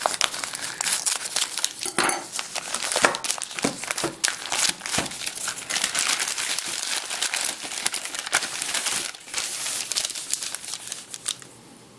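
Brown kraft paper wrapping and tape crinkling and crackling as a package is unwrapped by hand, with many sharp irregular crackles that die down near the end.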